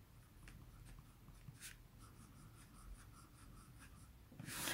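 Lamy fountain pen with a broad (B) nib writing on smooth paper: faint, light scratching strokes, then a quick run of short strokes as it draws a looping squiggle. A brief louder rush of noise comes near the end.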